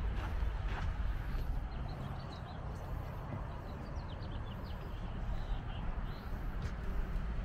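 Outdoor ambience: a steady low rumble with several quick, high bird chirps in the middle.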